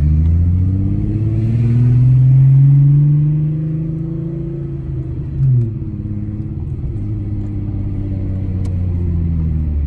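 Volkswagen VR6 car engine pulling away. Its note climbs over the first couple of seconds, holds, then eases off, with a quick blip about five and a half seconds in before it settles into steady running.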